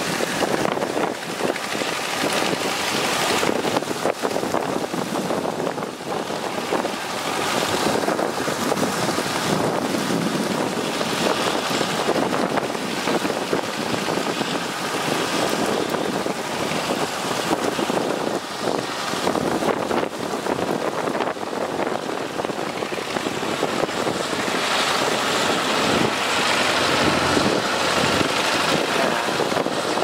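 Distant small engines of riding rice transplanters running steadily, mixed with wind noise on the microphone.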